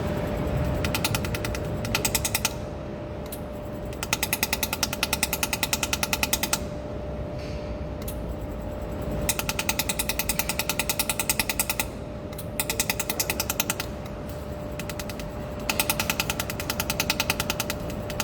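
200 W pulsed laser welding machine firing pulse trains while the foot pedal is held: bursts of rapid, evenly spaced clicks, about ten a second, each burst lasting one to two and a half seconds, with short pauses between. A steady faint tone runs underneath.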